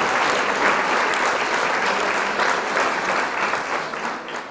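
Applause: a dense, steady patter of many hands clapping, fading out near the end.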